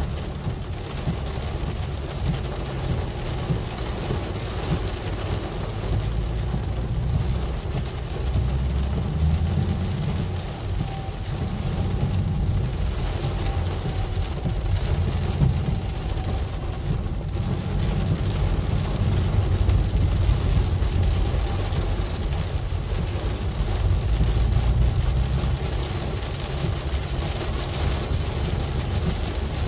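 Heavy rain beating on a car's roof and windshield, heard from inside the cabin, over the steady low rumble of the car driving on wet road.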